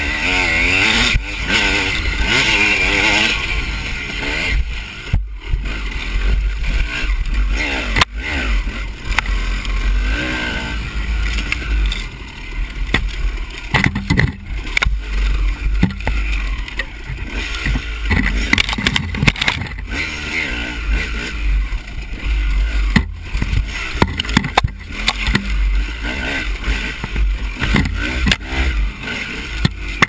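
Dirt bike engine revving up and down as the bike is ridden over a rough trail, with frequent knocks and rattles from the bike and a steady low wind rumble on the microphone.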